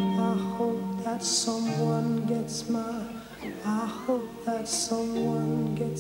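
A man singing a slow rock song live, his voice wavering on a held note midway, over sustained electric guitar chords.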